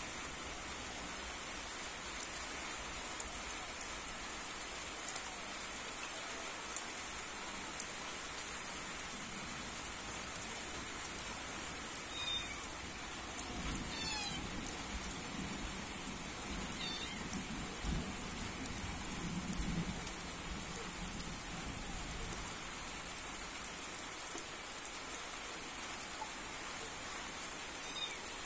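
Steady rain falling, with scattered sharp drips and taps. Around the middle a low rumble rises for several seconds and a few short high calls sound.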